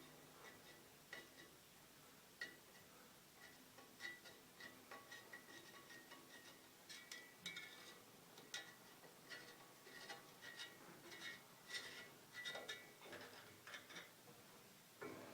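Faint, irregular clicks and light metallic taps from a screwdriver working a urethane tire over the rim of a bandsaw wheel.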